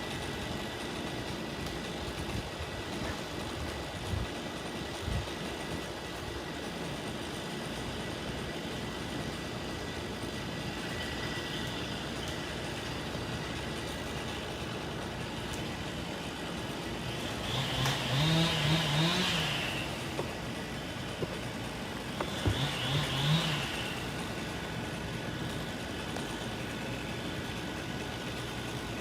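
An engine runs steadily in the background, with two short revving surges: one lasting about two seconds, about two-thirds of the way through, and a shorter one a few seconds later.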